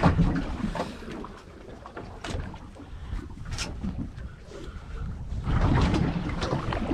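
Low rumble and noise of a small fishing boat on rough water, with a few sharp knocks, two of them about two and a half and three and a half seconds in.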